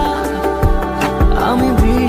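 Background music: a Bengali song with a steady drum beat of about two beats a second under sustained and gliding instrumental notes.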